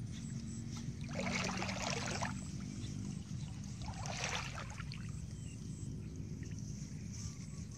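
Muddy water and wet mud sloshing as hands work in a shallow ditch, in two splashy bursts about a second in and again near the middle.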